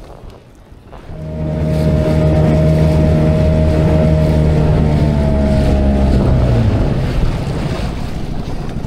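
A boat engine starts sounding about a second in, running at a steady pitch; after about six seconds its pitch drops slightly and it fades into wind and water noise.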